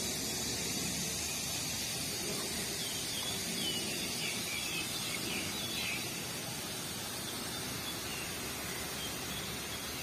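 Steady rushing outdoor noise, a little softer after about six seconds, with a few faint high chirps in the middle.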